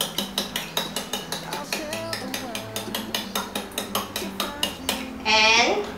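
Fork beating eggs in a ceramic bowl, clicking against the bowl about five times a second. About five seconds in, a short, loud, wavering high-pitched sound, like a voice, cuts over it.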